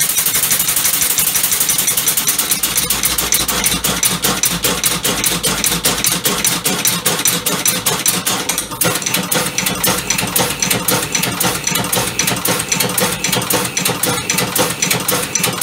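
Homemade five-cylinder compressed-air engine running on the bench: a rapid, even rattle of mechanical knocks. It falters briefly about nine seconds in, then carries on.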